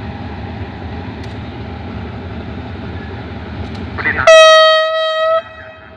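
SRT GEA-class GE diesel-electric locomotive idling with a steady low rumble, then, about four seconds in, one loud blast of its horn, a single steady note lasting just over a second before it cuts off.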